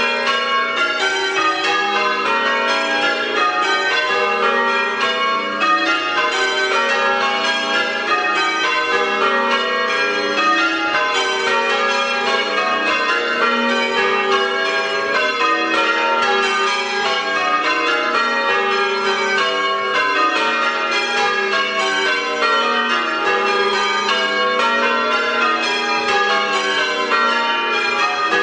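Ladock church's bells being change-rung in a Major method, eight bells striking in a steady, unbroken sequence whose order shifts from row to row, each stroke ringing on under the next.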